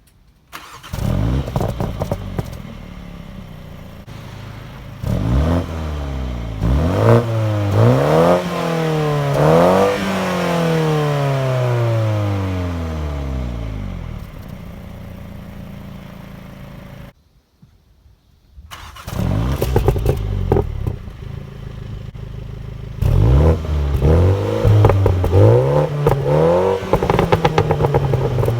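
BMW M135i xDrive (F40) with its stock exhaust, a 2.0-litre turbocharged four-cylinder, starting up and settling to idle, then revved in a series of quick blips, the last held higher and falling slowly back to idle. Past halfway it goes silent for about a second and a half, then starts again and is blipped repeatedly.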